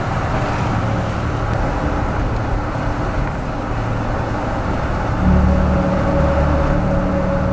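Steady road and engine noise of a moving vehicle. About five seconds in, low held music tones come in over it.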